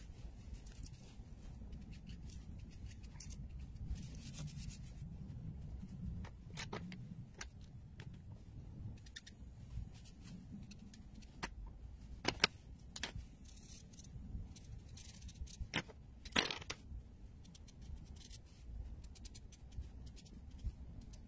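Faint low room rumble with scattered sharp clicks and scrapes, a handful of them spread through the middle of the stretch, from markers being handled and drawn across paper.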